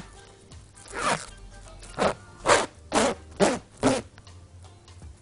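Plastic cling film being pulled off its roll in six short ripping pulls, each falling in pitch, packed closer together toward the middle of the stretch.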